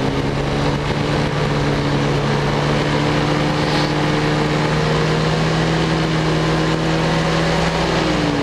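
Ultralight aircraft engine running steadily on landing approach, with wind rush. Near the end its pitch drops as the throttle comes back for touchdown.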